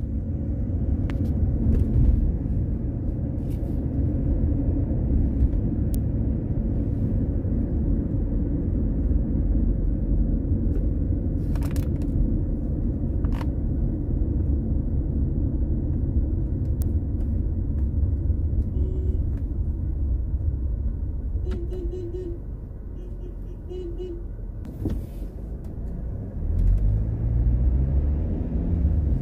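Car driving on city roads: steady engine and road rumble that eases off past the middle, with a few faint short beeps. Near the end a rising engine note as the car accelerates.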